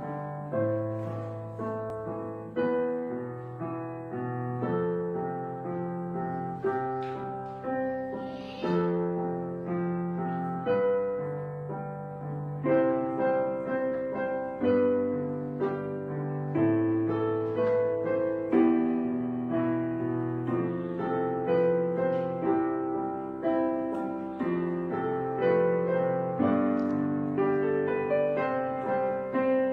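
Background piano music, with notes and chords struck and left to ring out.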